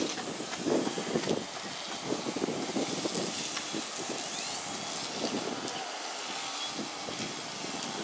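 Steady outdoor background noise of distant traffic, with uneven low rumbles that swell now and then, loudest about a second in.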